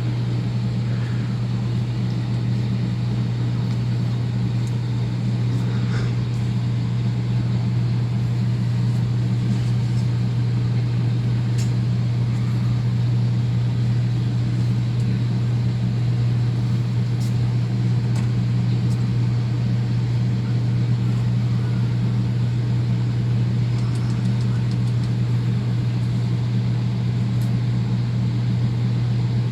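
Steady low-pitched hum and whir of running network rack equipment, unchanging throughout, with a few faint ticks from cables being handled.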